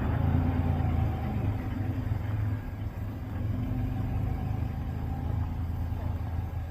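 Motor vehicle running with a steady low engine and road rumble.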